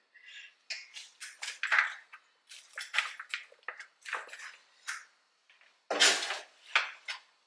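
Cooked chicken bones and meat scraps pulled apart and handled by hand in a dish: a run of short irregular clicks and wet rustles, with one louder knock about six seconds in.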